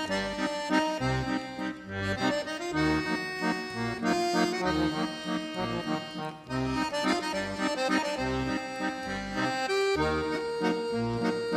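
Accordion playing a waltz, bass notes pulsing under the melody.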